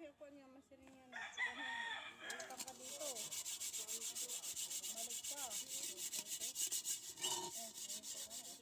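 A bare hand scrubbing grit around the inside of a sooty metal rice pot to take off the soot: rapid, even rubbing strokes that start about two seconds in and go on. A rooster crows about a second in.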